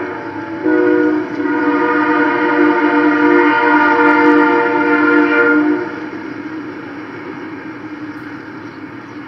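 Freight locomotive's air horn sounding for a street crossing: a steady multi-note chord that dips briefly, then holds as a long blast until about six seconds in. After that the sound drops to a much fainter steady level.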